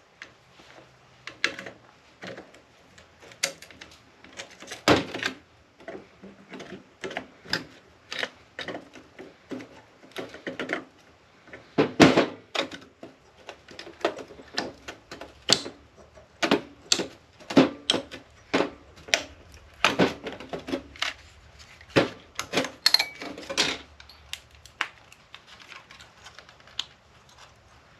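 Irregular clicks, snaps and knocks of wire nippers and small metal and plastic parts as the inside of an APC battery backup unit is cut and pried apart, with a few louder snaps about halfway through and again later.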